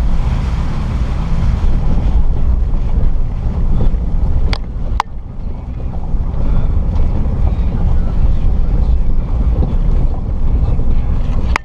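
A lifted 2006 Jeep Liberty (KJ) driving slowly over a rough trail: a steady low rumble of engine and tyres, with wind buffeting the microphone. Sharp knocks come twice in quick succession about halfway through and once more near the end.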